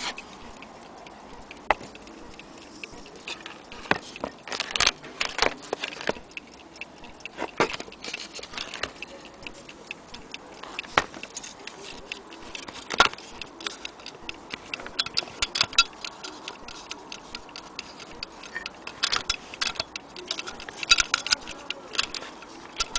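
Sharp, irregular clicks from handling and working the mechanism of a 1960s Metamec wind-up mantel clock, with several bursts of rapid clicking.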